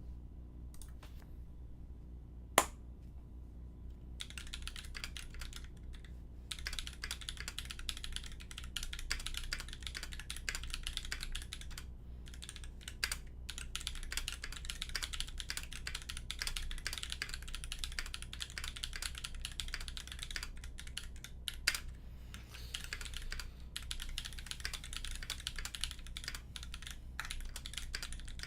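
Typing on a Canoe mechanical keyboard with Holy Panda tactile switches on an aluminium plate and GMK keycaps: a fast run of keystroke clacks starting about four seconds in, with a few short pauses. A single sharp click about two and a half seconds in, before the typing begins, is the loudest sound.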